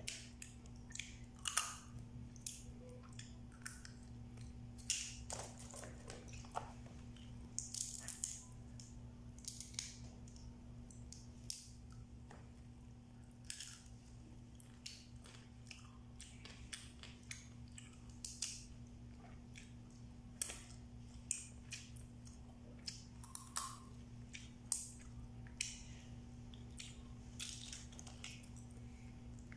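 Cooked blue swimming crab shells being cracked and picked apart by hand, with chewing of the crab meat: irregular short cracks and clicks, a few of them sharper, over a steady low hum.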